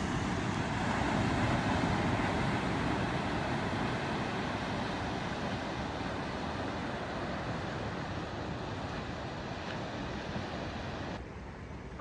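Ocean surf washing onto a beach, a steady rushing noise with wind mixed in; it drops to a quieter rush about eleven seconds in.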